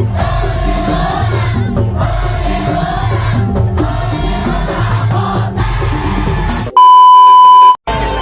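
Madurese tong-tong (daul) ensemble music: a repeating low drum pattern under a wavering melody line. Near the end the music cuts off for about a second of loud, steady electronic beep, then a brief silence.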